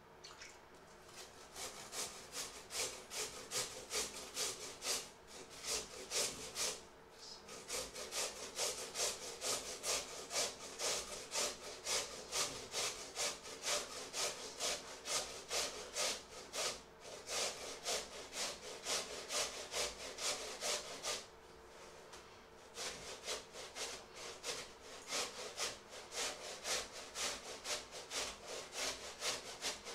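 A fork beating a mixture in a stainless steel bowl: quick, even scraping strokes about three a second. The strokes pause briefly about seven seconds in and again after about seventeen, then stop for over a second a little past twenty seconds before starting again.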